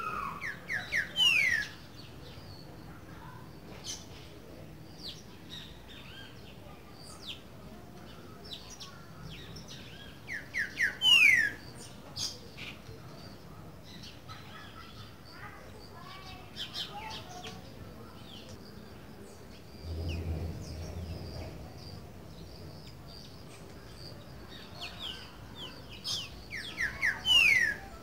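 Green-winged saltator (trinca-ferro) singing its classic 'boiadeiro' song: three phrases, near the start, about ten seconds in and near the end, each a few quick notes ending in a loud falling whistle. Faint chirps of other birds in between.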